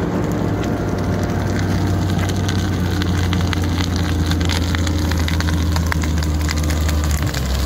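Case wheel loader's diesel engine running steadily under load as it pushes a bucketful of earth through dry brush. Dense crackling and snapping builds from about two seconds in.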